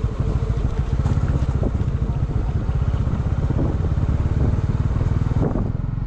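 Motorcycle engine running steadily while the bike is ridden along a dirt track, a continuous low, even pulsing from the engine.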